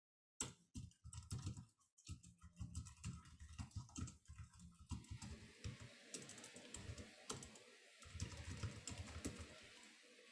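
Typing on a computer keyboard: a fast, faint run of keystroke clicks with a few short pauses.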